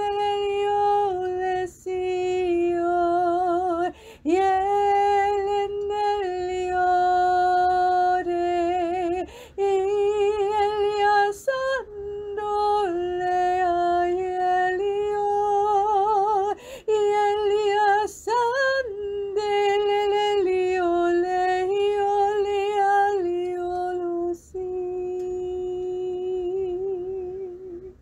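A woman singing alone and unaccompanied in tongues, a spontaneous worship song 'in the Spirit': slow, long-held notes with vibrato, broken by short pauses for breath.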